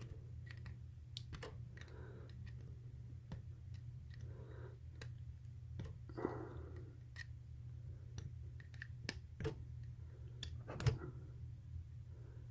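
Scattered light clicks and ticks of a tool working at a Berdan primer in a 7.62x54R brass case chucked in a mini lathe, over a low steady hum; one sharper click comes near the end. The primer has not yet popped out.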